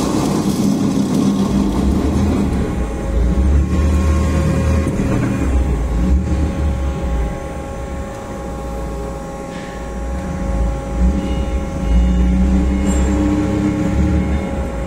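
Kaltenbach KKS 450 H semi-automatic metal-cutting saw running: a steady low machine hum with a steady whine above it. The level dips for a couple of seconds about halfway through.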